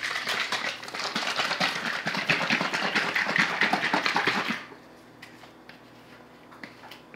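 Small bottle of terracotta liquid concrete colour tint being shaken hard by hand, a fast rattle that stops about four and a half seconds in.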